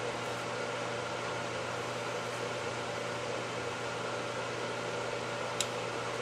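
A steady mechanical hum, holding several fixed tones, with a single sharp click near the end.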